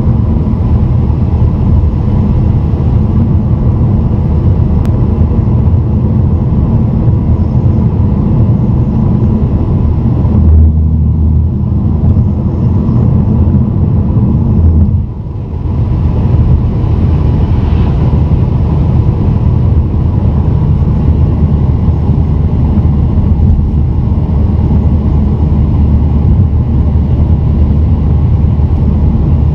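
Steady low road and engine rumble of a car driving at highway speed, heard inside the cabin, strongest in the low end. The rumble swells slightly for a few seconds, then drops briefly about fifteen seconds in before settling back.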